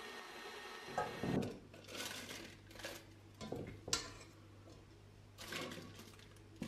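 Stand mixer running, its whisk whipping chocolate cream in a steel bowl, for the first second and a half. Then a silicone spatula scraping the thick cream out of the steel bowl into a piping bag, with several short scrapes and knocks.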